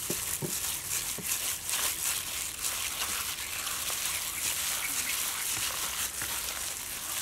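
A hand in a plastic bag mixes raw egg into minced pork and shrimp dumpling filling, giving a steady crinkling of plastic and wet squishing of the meat. The sound stops suddenly at the end.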